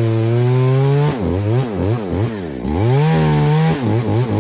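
EFCO two-stroke chainsaw running. It is held at high revs for about a second, then revved down and up several times, held high again, and blipped quickly near the end.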